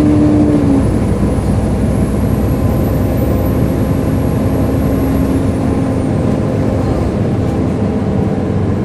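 Volvo B7LA bus (Wright StreetCar) running with its cooling fan making a loud hoover-like whine over the engine noise. A strong tone cuts off about a second in, and a faint high whistle fades downward about six seconds in.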